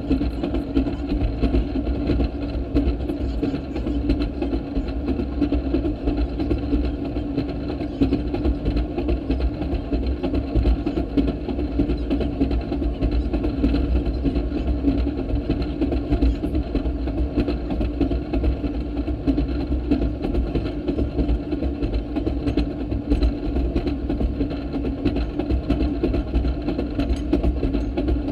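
Railroad speeder (track motorcar) running steadily along the rails, its small engine holding an even, unchanging drone with a low rumble beneath.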